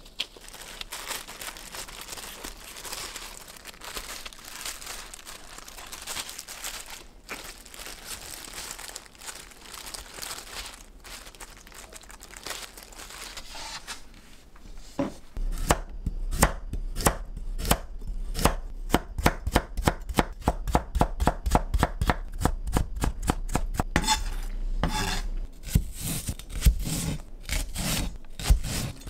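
A kitchen knife chopping on a cutting board in quick, regular strokes, about three to four a second, starting about halfway in. Before the chopping there is a stretch of quieter rustling.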